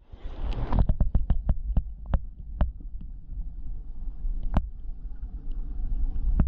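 Muffled low underwater rumble with a run of sharp clicks that come further and further apart, then two more single clicks.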